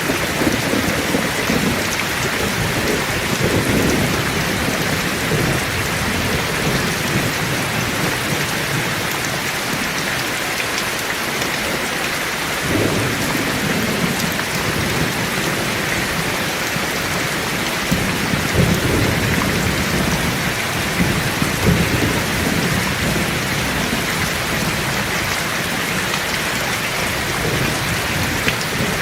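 Heavy rain pouring steadily, with rolls of thunder rumbling through it: one near the start, one about halfway through, and more a little after.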